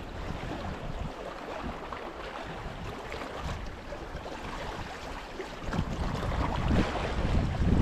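Sea water washing against the rocks, with wind on the microphone that gets stronger in the last two seconds.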